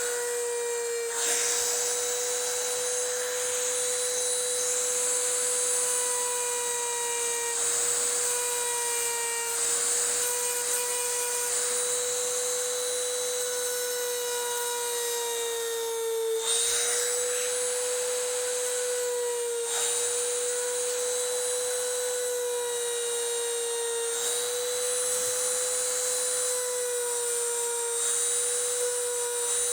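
Small electric grinder running with a steady high whine, grinding down a dowel in a rifle stock repair. Its pitch dips briefly every few seconds as the bit bears on the work, with a hissing grinding noise that swells and eases.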